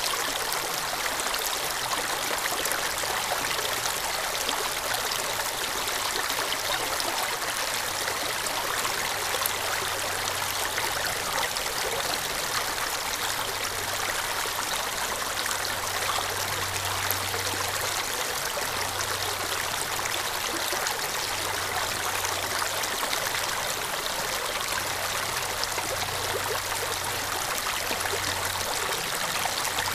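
Shallow stream water running over and around rocks: a steady rush with trickling.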